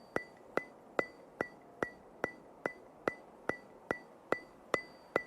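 Steady ticking: sharp clicks at about two and a half a second, each with a short, high, ringing tone, like a clock or metronome.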